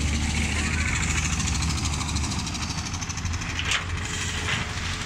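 Motor grader's diesel engine running steadily as it grades the wet mix macadam road base, with one sharp click a little over three and a half seconds in.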